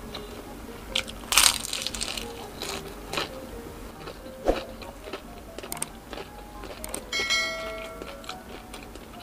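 Close-miked eating of fried Filipino street food: a loud crunchy bite about a second and a half in, then scattered mouth clicks and smaller crunches. About seven seconds in comes a clink that rings briefly.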